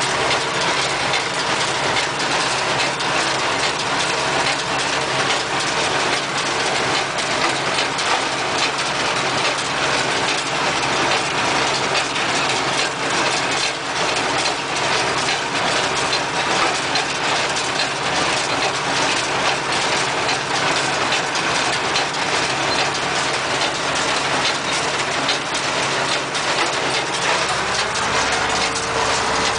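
MB Trac 900 Turbo tractor's diesel engine running steadily under load, driving a New Holland 276 small square baler through the PTO while it bales barley straw, with the baler's mechanism clattering. Heard from inside the tractor cab; the engine note rises a little near the end.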